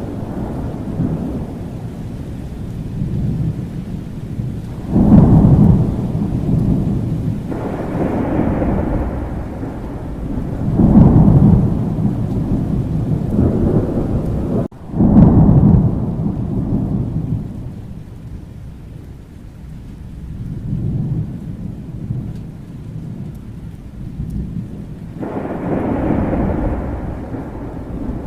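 Thunderstorm: steady rain under rolling thunder, with loud claps that break in suddenly about five, eleven and fifteen seconds in and a softer roll rising near the end.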